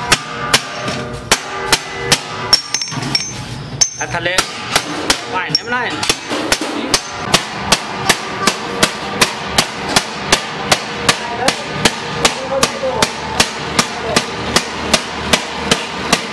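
A hand hammer beating stainless steel on a milk can and its lid in steady blows, about two or three a second, each with a short metallic ring.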